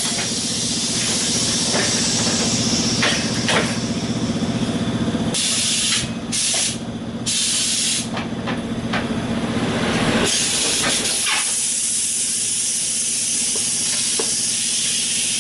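Tyre-changing work on a tyre machine: a motor hums steadily for about the first ten seconds, and loud blasts of compressed-air hiss start and stop sharply around the middle. A steady hiss of air then carries on without the hum.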